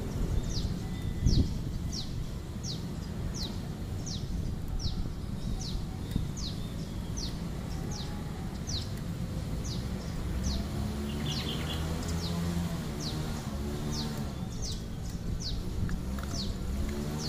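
A bird calling over and over: a short, high chirp that drops in pitch, repeated about twice a second, over low outdoor rumble. From about ten seconds in, a low, wavering hum joins in the background.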